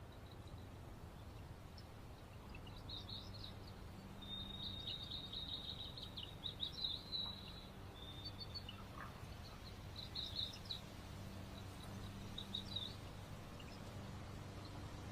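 Night insects chirping in short, high trills that come in bursts, with a longer run of chirps from about four to seven and a half seconds in, over a steady low hum.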